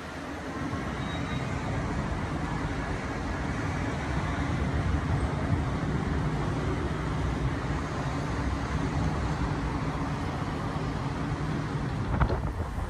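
Road traffic: motor vehicle engines running along the street as a steady rumble that swells after about a second, with a few short knocks near the end.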